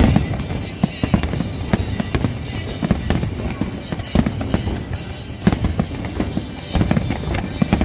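Fireworks display: a rapid, unbroken string of bangs and crackles, several per second, with louder booms standing out now and then.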